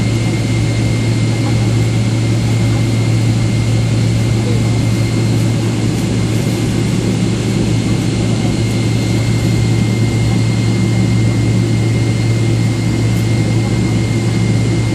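Cabin noise inside a Boeing 777-300ER taxiing: the steady hum of its GE90 jet engines at low power, with a thin steady high whine over the rush of air.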